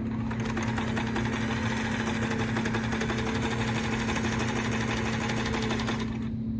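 Kenmore sewing machine running and stitching fabric as a test seam, a rapid steady clatter of the needle mechanism. It starts about half a second in and stops about six seconds in.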